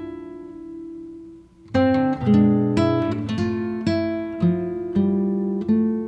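Background music: plucked acoustic guitar, single notes that ring and fade, with a short lull about a second and a half in before the playing picks up again.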